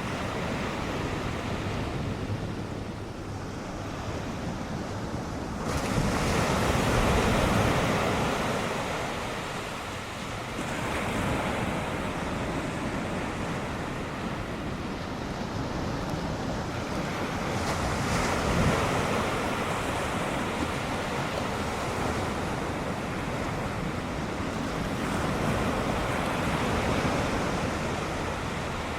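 Ocean surf from a typhoon swell breaking and washing in, in repeated surges, with wind buffeting the microphone.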